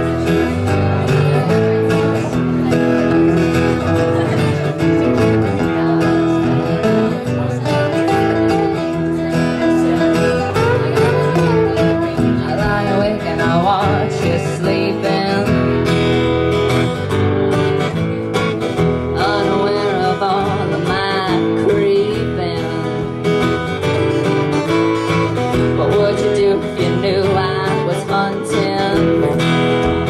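Live country-style band music: acoustic guitar strumming under a wavering lead melody line.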